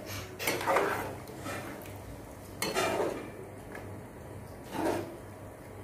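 Long metal ladle stirring matar paneer curry in a metal kadai, the gravy thinned with water just added. About four short scrapes and clinks of metal on the pan are heard.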